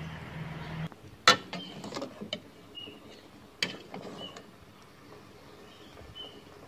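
Water poured into a pot of hot curry broth, stopping about a second in. Then a metal ladle clinks against the aluminium pot a few times while stirring, the loudest clink just after the pour. Faint bird chirps in the background.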